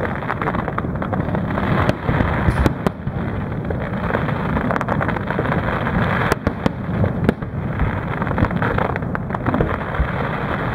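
Many aerial firework shells bursting in quick succession: a dense run of sharp bangs and crackles over a continuous low din.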